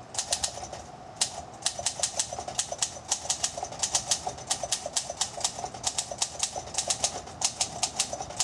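1959 Olympia SM-3 manual typewriter being typed on at a steady pace, its typebars striking the platen several times a second.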